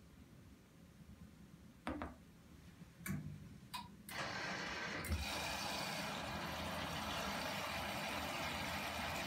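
Nortec/Primus P6 commercial washing machine starting its 95°C boil-wash program: a few sharp mechanical clicks, then about four seconds in water begins rushing steadily into the machine as it fills.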